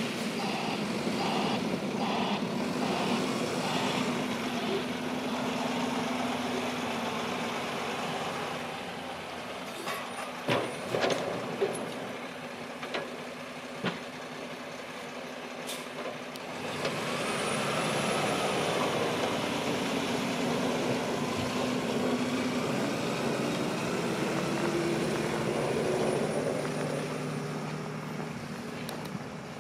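Snowplow truck's backup alarm beeping at an even pace over the steady engine drone for the first few seconds. About ten to fourteen seconds in come a few sharp knocks, and then the engine runs louder with its pitch rising as the truck pulls away.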